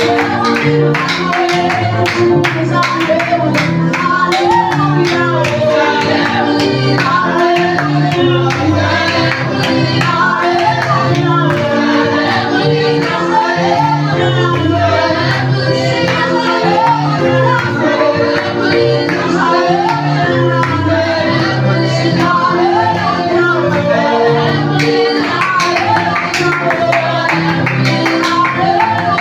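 Praise-and-worship band music with singing voices over a moving bass line and a steady percussive beat.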